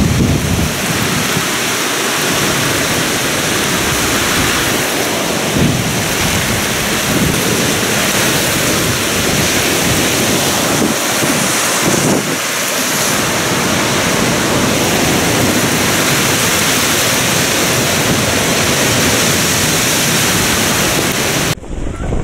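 Heavy rain and strong gusting wind in a thunderstorm: a loud, steady rush of downpour, with gusts buffeting the microphone now and then. It cuts off suddenly near the end.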